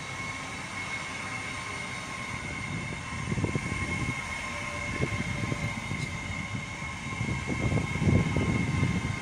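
Great Western Railway Class 800 train pulling into a station platform: a low rumble that swells and fades, under a steady high-pitched whine.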